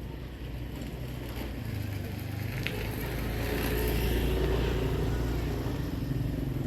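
Tractor engine running, getting louder over the first few seconds and then holding steady.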